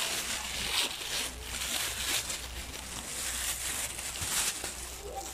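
A thin plastic bag crinkling and rustling in irregular bursts as it is handled.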